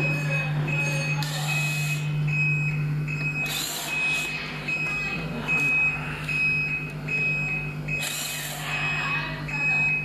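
Cordless impact wrench running in short bursts, about three times, as it drives in a scooter's front axle bolt. A steady high beep repeats about every half second over a low hum.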